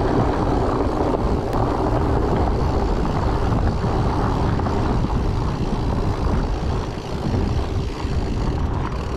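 Steady rumble of a fat bike's 4.8-inch tyres rolling over a dirt trail, mixed with wind noise on the microphone.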